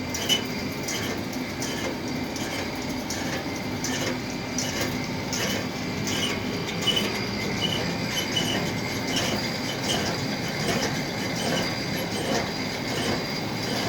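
Metal-turning lathe running as it works a metal drum, giving a steady high metallic whine with scattered light ticks.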